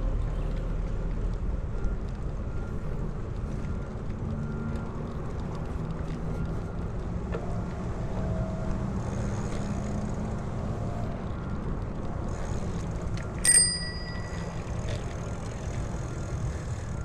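A bicycle bell rings once, a single bright ding about three quarters of the way in, over the steady low rumble of a bicycle being ridden.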